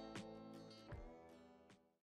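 Soft background music with plucked guitar notes, fading away to silence near the end.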